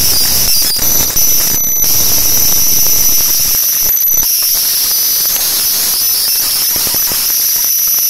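Loud, steady hiss with two constant high-pitched whines running through it. The hiss is like recording or electrical noise, with no clear sound from the card handling.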